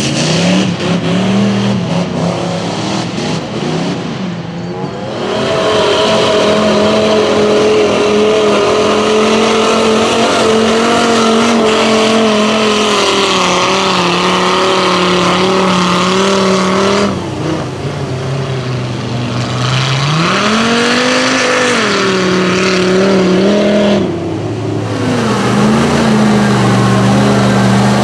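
Engines of lifted mud-bogging trucks on huge tyres running hard and revving as they plough through deep mud, in several short clips cut one after another. The engine note holds fairly steady for long stretches, then swells up and falls back once, about two-thirds of the way through.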